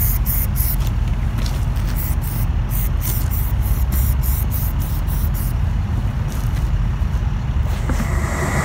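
Aerosol can of marking paint sprayed in short hisses, about three a second, stopping about five and a half seconds in, over a steady low rumble.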